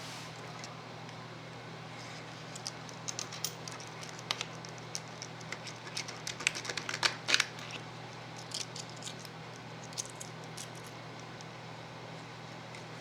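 Light clicks and taps of small metal parts and tools being handled during a shock absorber rebuild, scattered through the middle and loudest in a cluster just past halfway, over a steady low hum.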